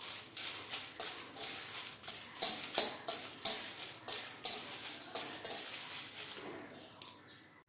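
A spatula scraping and tapping against a metal kadai, stirring dry red chillies as they roast, with the rustle of the chillies. The strokes come about twice a second and stop about seven seconds in.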